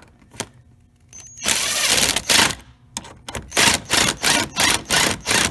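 Ratchet wrench tightening the small screw on the air box mount: a long run of rapid clicking, then short bursts of clicking about three times a second as it is swung back and forth.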